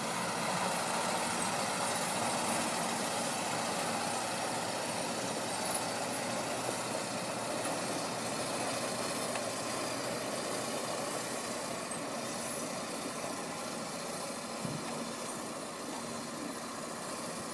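Heavy truck's diesel engine pulling under load up a steep snowy grade, a steady engine noise that slowly grows fainter as the truck climbs away.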